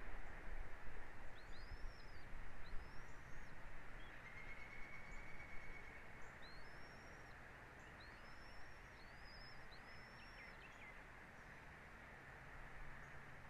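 Bird calls: a series of short, high, arching chirps, with one longer steady whistled note partway through, over a steady outdoor hiss.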